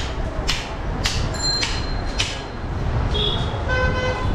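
A butcher's heavy knife chopping into a hanging goat carcass: four sharp strokes about half a second apart, over a steady low background rumble. Near the end a vehicle horn gives a short steady toot.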